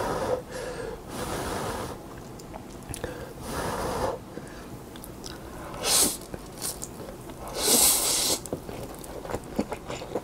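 A person slurping Peyang yakisoba instant noodles off chopsticks in several long sucking draws, the loudest about eight seconds in, with wet chewing between.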